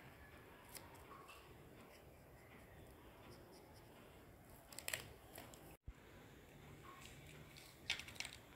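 Faint room hiss, broken by two short bursts of paper and pen handling clicks and rustles about five and eight seconds in. There is a momentary dropout just before the sixth second where the recording cuts.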